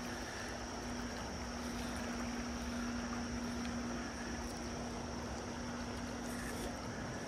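River water rushing steadily over a riffle, with a steady low hum underneath that fades near the end.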